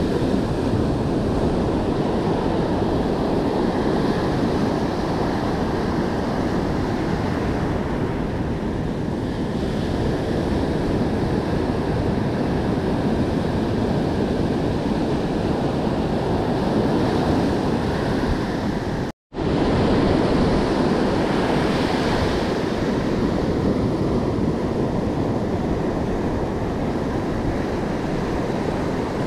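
Ocean surf breaking and washing up the beach in a steady wash, with wind buffeting the microphone. The sound cuts out for an instant about two-thirds of the way through, then resumes.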